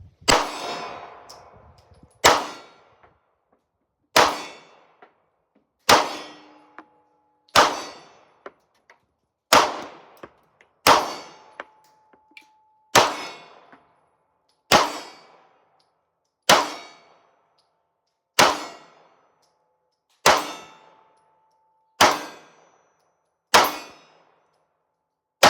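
Glock 19 9mm pistol fired in slow, single shots, about one every two seconds, fourteen in all. Several shots are followed by a short metallic ring.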